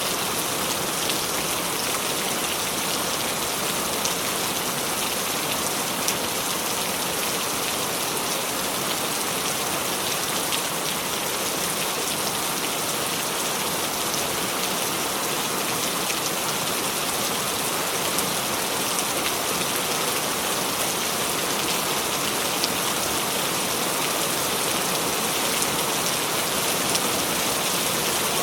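Steady rain falling: an even hiss with the fine patter of individual drops, unchanging throughout.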